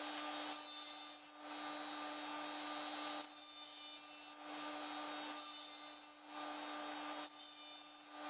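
Bench grinder with Razor Sharp Edge paper wheels running with a steady hum while a hunting knife's edge is drawn across the spinning grit wheel. The blade makes a hissing scrape in about six passes of one to two seconds each, with brief breaks between them as the blade is lifted. The passes are raising a burr on the edge.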